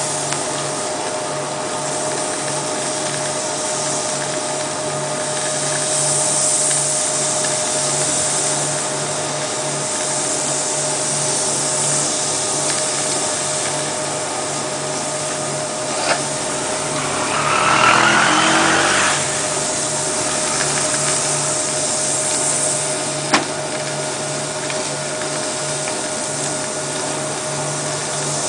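Sawdust briquette press running steadily, a continuous machine noise with a low, even hum and a fixed tone throughout. Around the middle a louder rush of noise swells for a couple of seconds, and two sharp clicks sound, one shortly before it and one a few seconds after.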